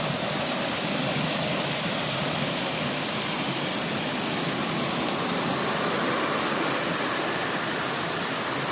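Steady rush of a waterfall running full, an even hiss with no breaks.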